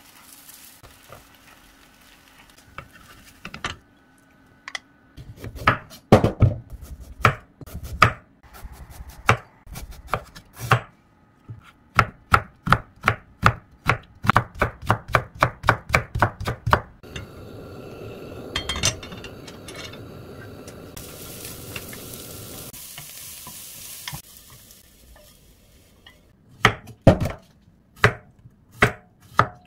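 A chef's knife chopping on a wooden cutting board as carrot is cut into thin matchsticks, with an even run of strokes about three a second, and near the end, evenly spaced strokes slicing a cucumber. At the start, a faint sizzle from egg cooking in a square omelette pan; in the middle, several seconds of steady hiss.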